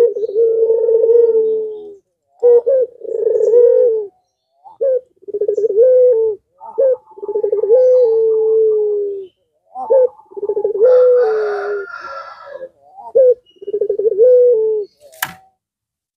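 Puter pelung (domestic ringneck dove) cooing: a run of about six long, low coos, each lasting one to two and a half seconds with short breaks between them. A sharp click comes near the end.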